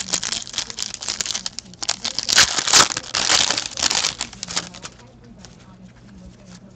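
A foil hockey card pack being torn open and its wrapper crinkled: a dense crackling, loudest about two and a half seconds in, that dies down after about four and a half seconds to light handling of the cards.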